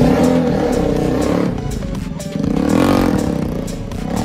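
Bajaj Pulsar NS200's single-cylinder engine running loud through a freshly fitted aftermarket Akrapovic exhaust as the bike pulls away, its revs rising and falling once about three seconds in.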